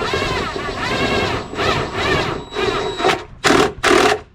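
Cordless DeWalt drill/driver driving a screw into wood: the motor whine rises and falls in pitch as the trigger is worked and the screw bites. It ends in three short bursts near the end as the screw is seated.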